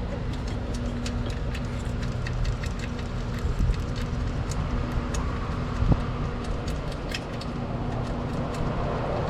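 Scattered small clicks and taps of hand tools working loose a small ground-wire fastener, with a couple of slightly louder knocks, over a steady low hum.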